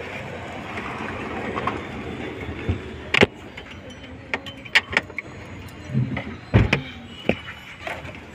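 Hand tools and car parts clicking and knocking during work inside a car's dashboard: a steady background noise at first, then a string of sharp knocks from about three seconds in, with two duller thumps around six seconds in.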